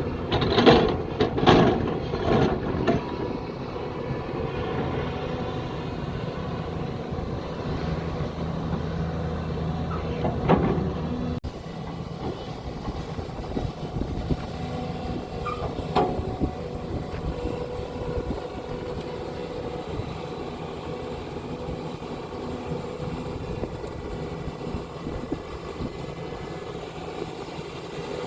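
Hyundai SMART 215L excavator's diesel engine running steadily under digging work. A cluster of knocks and clanks comes in the first few seconds, then another about ten seconds in and a sharp one about sixteen seconds in.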